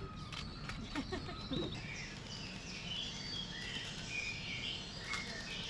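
Outdoor ambience with birds chirping in short high calls through most of it, and a few light clicks in the first second or so.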